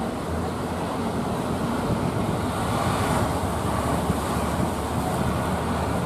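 Breaking waves and surf washing, with wind buffeting the microphone as a steady low rumble.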